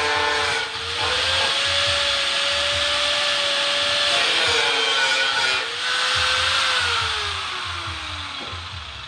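Handheld angle grinder cutting through a rectangular metal tube: a loud whine with a gritty cutting noise, its pitch sagging and recovering as the disc bites, briefly dropping twice. Near the end the grinder is lifted off and winds down with a falling whine.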